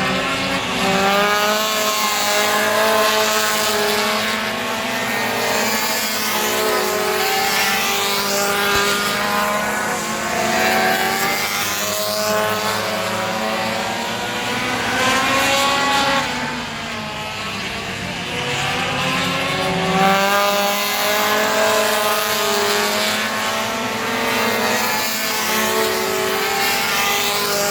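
Pro Compact race car engines running laps of a short oval track, their pitch climbing and falling again and again as they accelerate and lift off.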